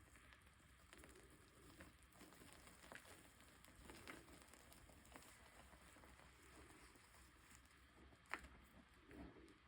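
Faint, sparse clicks and crackles of chalk being handled and crumbled, with one sharper click near the end.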